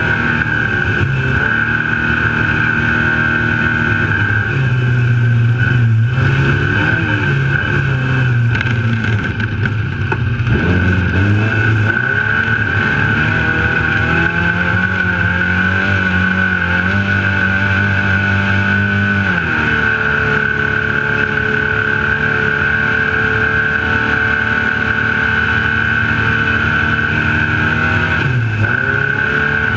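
Trophylite off-road race truck's engine running hard at speed. The revs rise and fall, dropping sharply about two-thirds of the way in and again near the end, over a steady high tone and the rush of driving.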